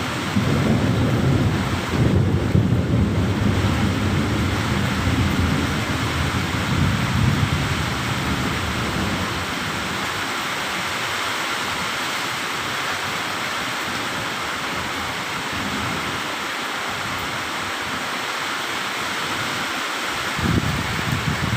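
Heavy rain falling steadily, with a long low rumble of thunder through the first several seconds that dies away about nine seconds in; a brief low rumble returns near the end.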